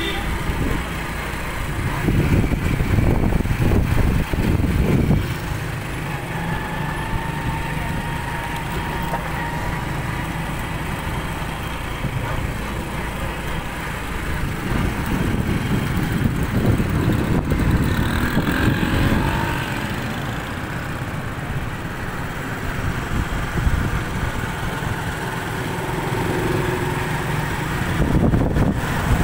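Street traffic heard from a moving motorcycle: engines running with a steady rumble, louder for a few seconds near the start, in the middle and at the end.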